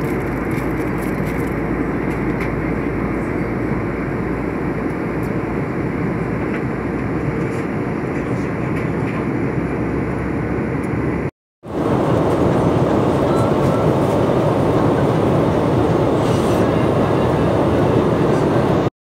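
Steady cabin noise of an Airbus A320 in flight, the even rumble and hiss of engines and airflow. It breaks off for a moment a little past halfway and resumes slightly brighter.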